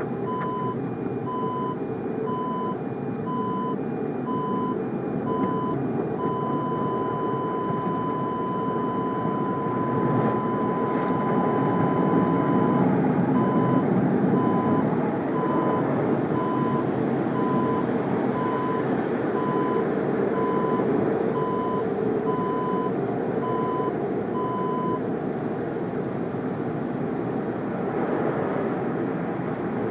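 Audi parking-sensor warning beeping inside the cabin, set off by the car-wash brushes and spray around the car. The beep repeats a little under twice a second, at first in two series at different pitches. It becomes one unbroken tone for several seconds, goes back to beeping, and falls silent for a few seconds near the end. Under it runs the rushing and scrubbing of the car-wash brushes and water on the car body, heard from inside the cabin.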